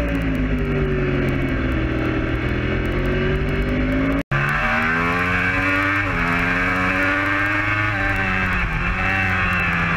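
Yamaha R1 superbike's crossplane inline-four engine at racing speed, its pitch falling and then climbing again, with a few quick dips in pitch later on. All sound cuts out for an instant about four seconds in.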